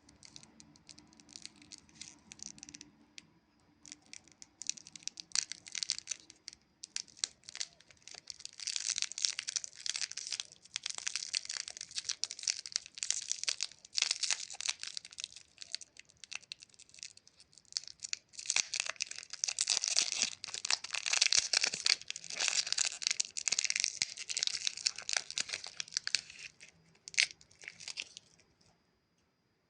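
Plastic Chupa Chups lollipop wrapper being crinkled and torn open, a dense crackling that comes in two long bouts and stops shortly before the end.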